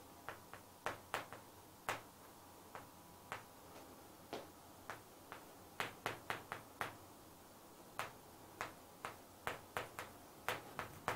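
Chalk writing on a chalkboard: a string of short, irregular taps and clicks as the chalk strikes and strokes the board.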